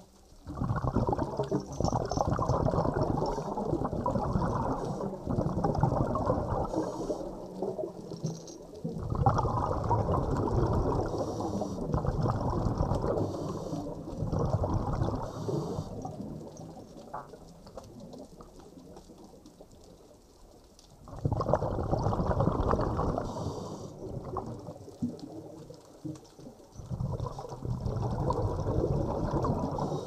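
Underwater bubbling and rushing water in long rumbling surges of several seconds each, with quieter gaps between.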